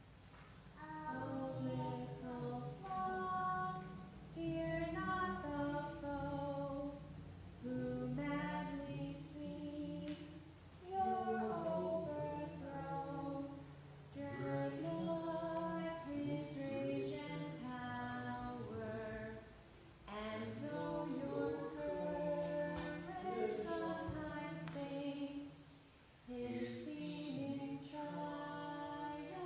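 Unaccompanied singing of a hymn, in phrases a few seconds long with short pauses between them.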